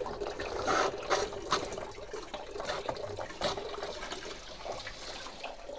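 Water from a hose pipe flushing through a Fiat 500's cooling system, running and trickling out of the hoses, with a few light knocks.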